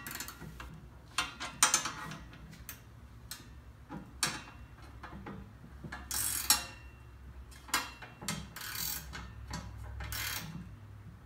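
An 11 mm ratcheting wrench turning a nut onto a rubber bumper on a steel bracket: short rasping ratchet strokes at irregular intervals, with sharp metal clicks between them.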